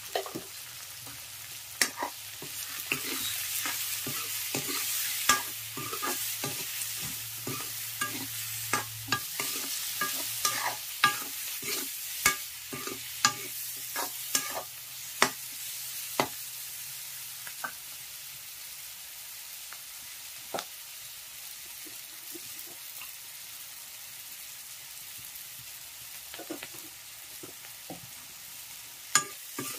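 Onions and spices frying in oil in a metal wok, sizzling steadily while a metal ladle stirs and scrapes the pan. The ladle knocks against the wok about twice a second for the first half, then only now and then.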